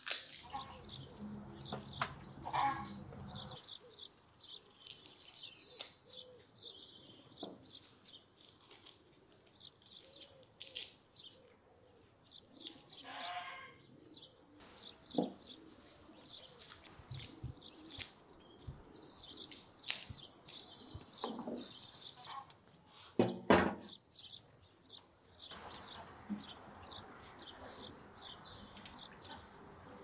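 Small birds chirping on and off, with scattered sharp clicks and taps of a small knife peeling garlic cloves on a wooden table, one louder knock a little past the middle.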